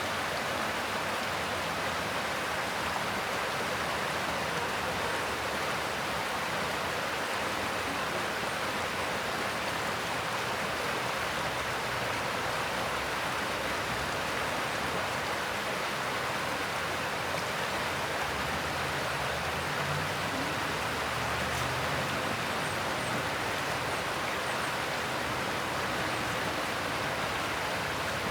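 Mountain stream flowing over rocks: a steady, even rush of water that does not let up.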